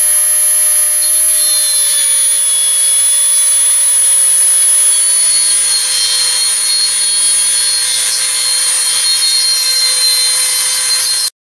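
High-speed rotary tool with a small abrasive cut-off wheel running and cutting into the gas block on a Kalashnikov-pattern rifle barrel. It gives a steady high whine whose pitch sags slowly as the wheel bears on the metal, and it stops abruptly near the end.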